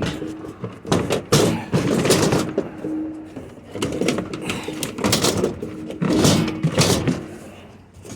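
Repeated knocks, bumps and scrapes of bulky scrap, a large flat-screen TV among it, being shoved and wedged into a crowded load.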